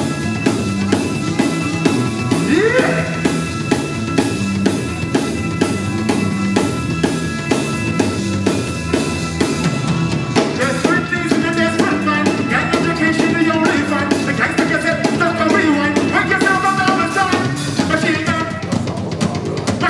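Live band playing, with a drum kit keeping a steady beat under held guitar tones. About halfway through, a wavering melodic lead line comes in over the beat.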